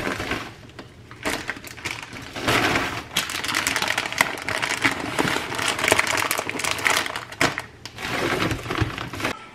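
Plastic grocery wrapping and bags crinkling and rustling as items are lifted out of an insulated delivery bag and set on a counter, with a few light knocks.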